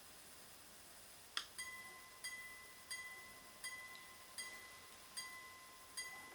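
Minute repeater pocket watch chiming faintly, its hammer striking one gong at a steady beat of about seven strikes spread roughly 0.7 s apart. A sharp click comes just before the strikes begin.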